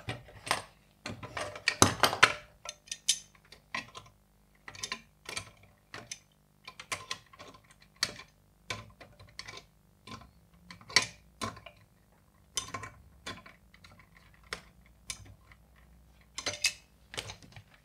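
Irregular metal clicks and short scrapes as a lamp igniter's mounting screw and washer are worked by hand against a sheet-metal fixture housing.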